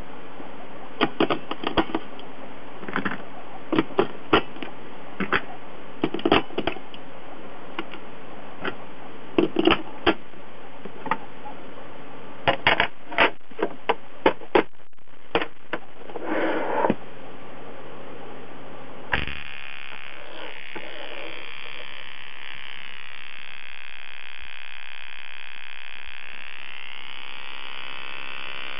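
Irregular clicks and knocks of a screwdriver and hands on the homemade battery-powered high-voltage generator and its case. About two-thirds of the way through, the generator is switched on and gives a steady, high-pitched electrical whine and buzz that wavers in pitch.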